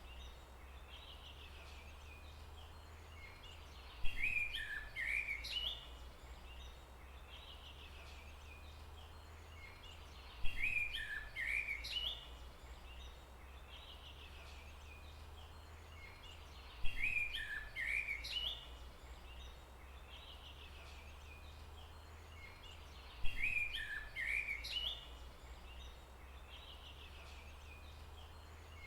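A songbird singing a short phrase of quick chirping notes, repeated four times about every six seconds, over a steady low hum.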